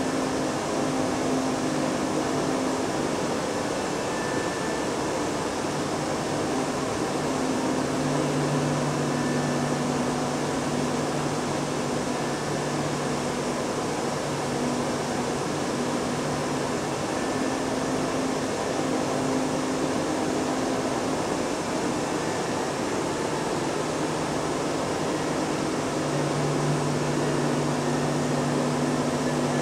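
Steady rushing room noise like ventilation in a gallery, with low held hums that come and go, strongest about a third of the way in and near the end.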